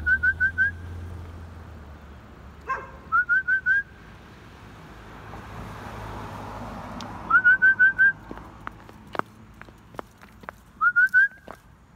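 A person whistling to call dogs, in quick runs of four to six short rising notes, four runs in all. A few sharp clicks come near the end.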